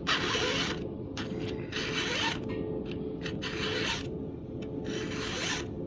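A flat file rasping across a full-chisel chainsaw chain cutter in four slow strokes, about a second and a half apart. The tooth is being reshaped to a steeper 35–40 degree angle.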